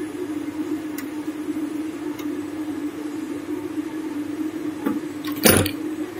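Desktop hydraulic injection molding machine humming steadily as it runs. A few faint clicks are followed by a loud clack about five and a half seconds in, as the toggle clamp shuts the mold.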